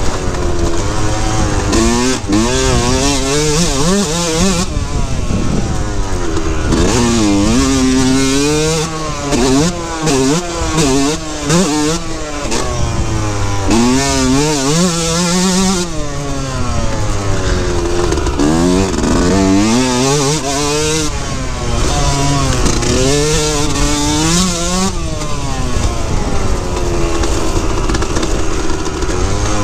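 2003 Yamaha YZ125's single-cylinder two-stroke engine at full riding revs, its pitch climbing and dropping again and again as the throttle is opened and rolled off, with short throttle-offs every few seconds.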